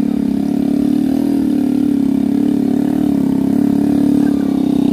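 Motorcycle engine running steadily, its pitch wavering slightly without rising or falling overall.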